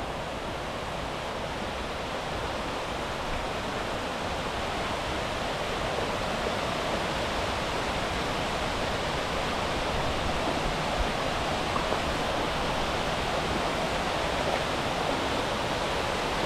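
Steady rushing of water pouring over a small waterfall (weir), a constant even roar of falling water.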